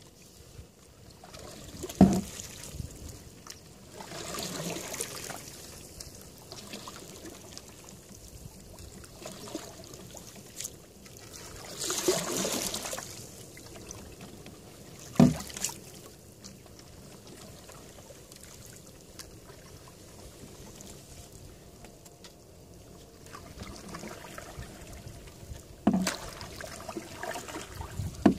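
Canoe being paddled: slow paddle strokes swish and drip in the water, and four sharp knocks of the paddle against the canoe's hull are spread through it.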